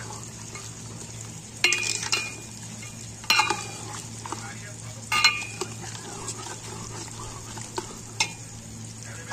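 A steel ladle stirring mutton in yogurt in a metal cooking pot, knocking against the pot with about six sharp ringing clanks. A steady sizzle of frying runs beneath, as the yogurt is stirred in until it melts.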